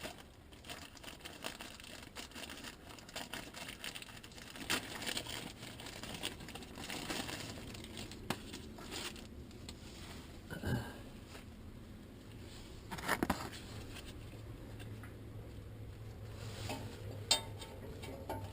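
Rustling and crinkling of things being handled and moved about, with scattered small clicks and knocks, two of them louder, about ten and thirteen seconds in. A faint low hum comes in during the second half.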